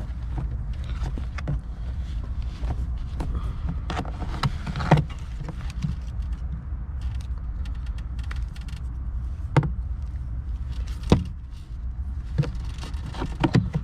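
Scattered clicks and knocks of a plastic trim cover being handled and pressed back into place in a car, over a steady low rumble.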